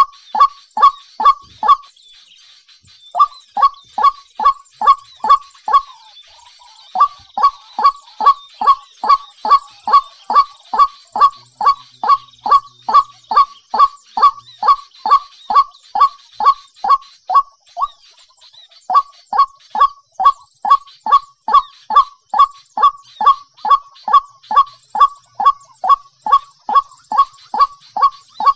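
A bird calling over and over in short, loud notes that each drop in pitch, about three a second, with a few brief pauses.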